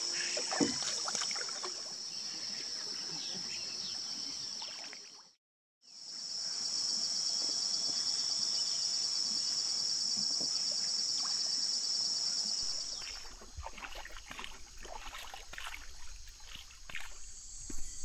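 Steady high-pitched drone of rainforest insects, with faint knocks and water sounds from a paddled canoe. The sound drops out briefly about five seconds in, and after about thirteen seconds the drone grows quieter while a low rumble and scattered knocks come in.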